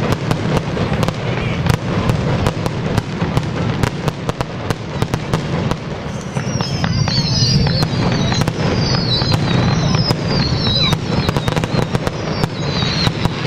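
Fireworks display: aerial shells bursting in many sharp bangs and crackles. In the second half comes a run of short, high, falling whistles, about one a second.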